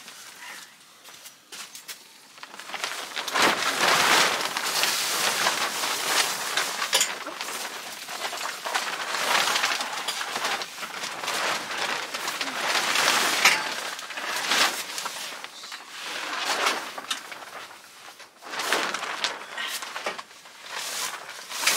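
Rustling and crinkling of a portable carport's fabric cover being pulled and shifted over its metal frame, starting a few seconds in and coming in waves.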